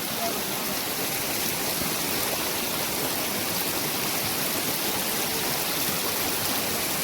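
Mountain river of snowmelt water rushing steadily.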